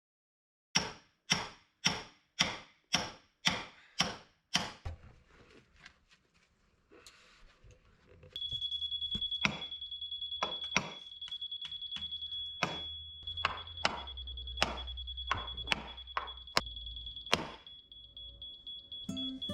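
A run of sharp, evenly spaced knocks, about two a second, each ringing briefly. About halfway in, a steady high-pitched tone and a low rumble set in, with irregular knocks over them.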